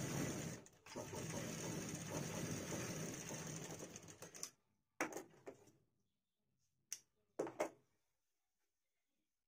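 Bharat sewing machine running steadily as it stitches a shirt seam, with a brief break about a second in; it stops after about four and a half seconds. A few sharp snips and clicks follow as the thread is cut with scissors.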